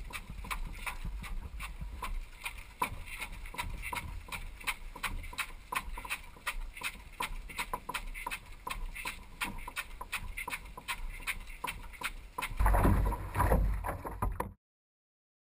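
A canoe under way: a fast, even clicking or knocking, about four a second, over a bed of water and movement noise. Near the end a louder burst of rushing noise comes in, then the sound cuts off.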